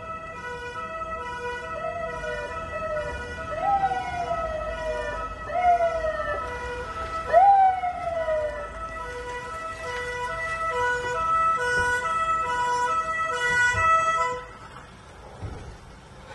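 Police vehicle sirens: a two-tone hi-lo siren alternating steadily between two pitches, joined for the first half by a siren sweeping down in pitch about every two seconds. The sirens cut off abruptly near the end.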